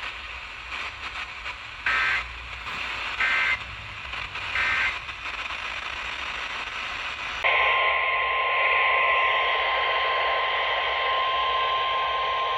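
NOAA Weather Radio broadcast over static hiss: three short warbling data bursts about a second and a half apart, the EAS end-of-message code closing the alert. About seven and a half seconds in, the steady single-pitch weather-radio warning alarm tone starts and holds over the hiss, announcing the next alert.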